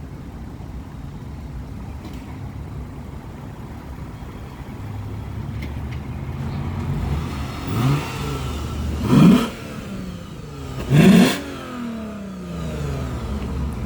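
Lexus GS350 F Sport's 3.5-litre V6 idling through an aftermarket valved exhaust, then revved: a small blip, then two sharp revs about two seconds apart, each dropping quickly back to idle.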